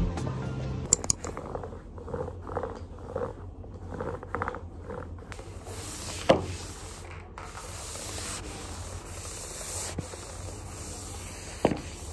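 Flat mop with a cloth pad pushed back and forth over a wooden floor: a run of short rubbing swishes, then a longer steady swish, with a couple of sharp knocks along the way.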